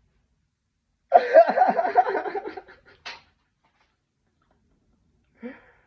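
A person laughing, a burst of about a second and a half starting about a second in, followed by a short breathy sound.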